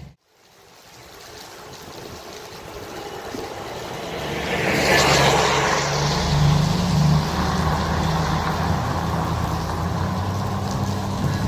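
A truck driving past: engine rumble and tyre hiss build up to a peak about five seconds in, then settle into a steady rumble.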